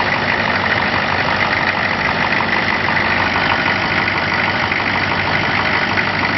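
A 6.5-litre turbo diesel engine idling steadily, heard with the hood open. It keeps running because its worn ignition switch will not shut it off.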